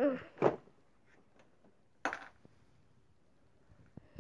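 Plush toys being handled on plastic toy furniture: faint taps and knocks. A brief child's vocal sound at the start and a short burst about two seconds in stand above them.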